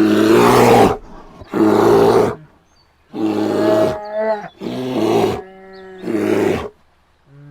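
A bear roaring five times in a row; each roar is loud, harsh and under a second long, with short pauses between.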